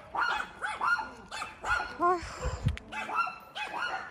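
Several neighbourhood dogs barking over and over in quick runs of short, high barks.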